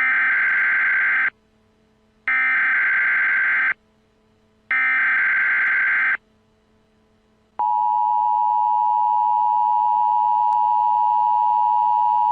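Emergency Alert System tones: three short bursts of buzzing digital data, the SAME header, each about a second and a half long with a second's gap between them, then, about seven and a half seconds in, the steady two-tone EAS attention signal begins.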